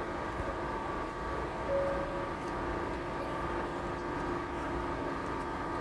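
Steady machinery hum with several held tones over a low rumble, with a brief higher tone about two seconds in.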